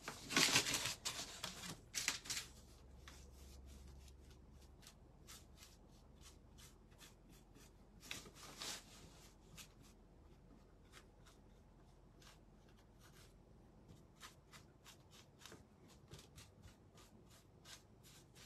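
Paintbrush stroking over a painted wooden surface while brushing on a sealer coat: faint, scratchy brushing made of many small ticks. Louder bursts of brushing noise come near the start and again about eight seconds in.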